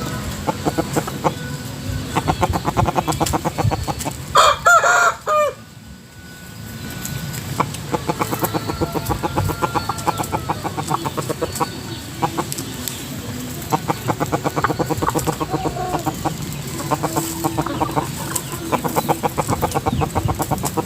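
Gà nòi fighting rooster crowing once, briefly, about four seconds in, with chicken clucking and calls through the rest.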